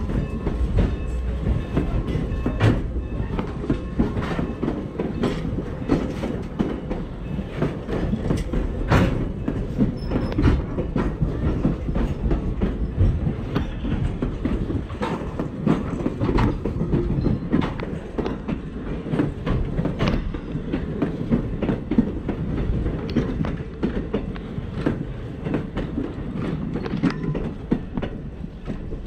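Heritage railroad passenger coaches rolling past, their wheels clicking over rail joints over a steady rumble. The sound eases off slightly near the end as the last car, an open observation car, goes by.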